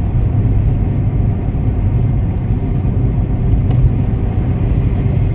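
A car driving steadily, a continuous low rumble of engine and road noise.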